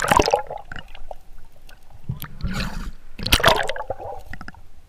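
Muddy river water sloshing and gurgling around a submerged camera, with three splashing surges: one right at the start, one about two and a half seconds in and one about three and a half seconds in.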